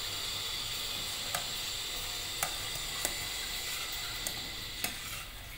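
Steel ladle stirring pumpkin-milk drink at a boil in a steel pot, with about five light clinks of the ladle against the pot over a steady hiss of the boiling liquid.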